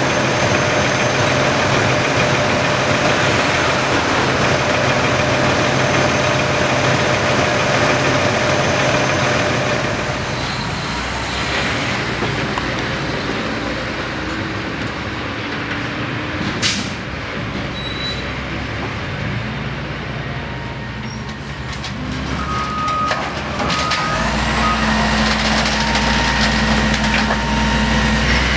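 Diesel engine of a Peterbilt concrete mixer truck running steadily. A single sharp click or knock sounds about two-thirds of the way through, and the engine grows heavier and louder near the end.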